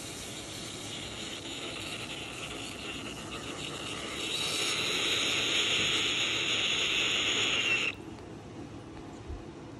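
Moluccan cockatoo making a long, harsh hissing sound that grows louder about four seconds in and cuts off suddenly near the end.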